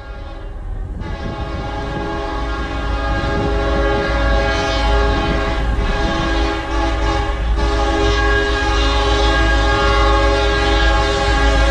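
Multi-chime air horn of a CSX SD50-3 diesel locomotive, a fouled Nathan K5HL, sounding a long, nearly continuous chord that grows louder as the train approaches, with one short dip about two-thirds of the way through. A low rumble of the approaching train runs beneath it.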